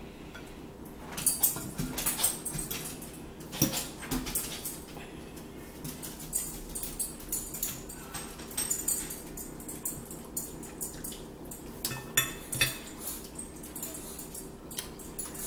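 Metal forks clinking and scraping on plates as two people eat, with scattered sharp clicks.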